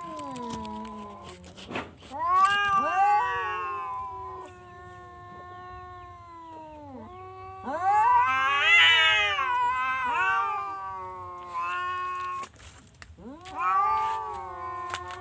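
Domestic cat yowling in long, drawn-out calls of several seconds each, each one sliding up at the start and down at the end. The tail of one call ends within the first two seconds, three more full calls follow, and the last is still going at the end.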